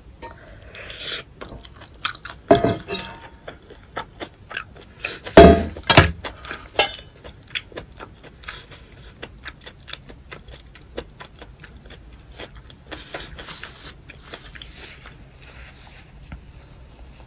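Close-miked chewing of a mouthful of cockle bibimbap, with wet clicking mouth sounds. Louder bites come about two and a half and five and a half seconds in, then steady smaller chewing clicks follow.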